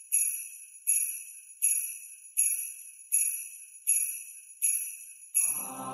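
Jingle bells shaken in a steady beat, about one shake every three-quarters of a second, each ringing out and fading. Music comes in near the end.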